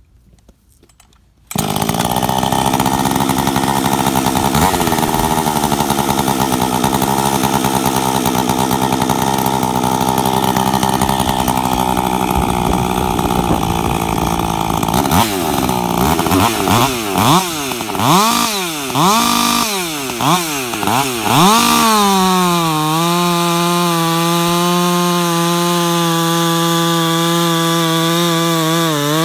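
Ported Husqvarna 562XP two-stroke chainsaw with a modified muffler. It starts running about a second and a half in and holds steady, then is revved up and down several times. From about two-thirds of the way in it settles into a steady, lower-pitched run under load, cutting frozen cottonwood with a 20-inch bar.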